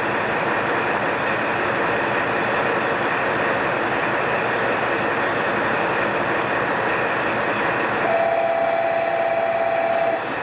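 An eight-car JR Kyushu KiHa 40-series diesel railcar train running through the station, a steady rumble of wheels on rail and diesel engines. About eight seconds in, a steady high tone joins for about two seconds and then stops.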